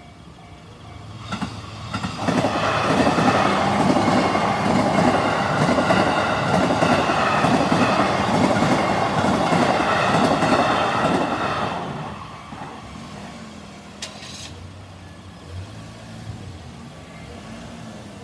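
A train passing over a level crossing, its wheels clattering on the rail joints. The noise rises about a second and a half in, stays loud for roughly ten seconds, then dies away. At the start, the crossing's alarm bell is still ringing faintly.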